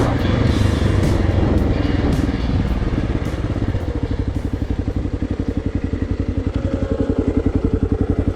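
Kawasaki KLR650's single-cylinder four-stroke engine easing off from riding and settling into idle, its exhaust pulses turning into an even chugging from about halfway through.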